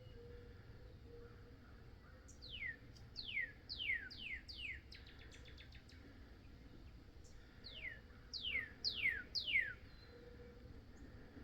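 A songbird singing: a series of about five clear whistles, each sliding quickly downward, then a short rapid trill, then four more down-slurred whistles near the end.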